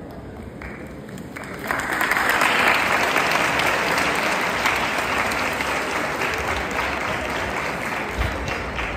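Audience applauding, swelling strongly about two seconds in and then slowly tapering off.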